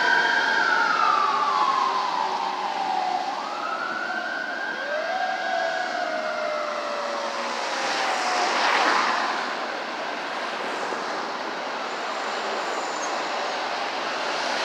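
Los Angeles Fire Department fire engine siren in a slow wail, its pitch sliding down, up and down again, growing fainter as the engine drives away until it is lost in traffic noise about nine seconds in. Just before that there is a brief swell of road noise from passing traffic.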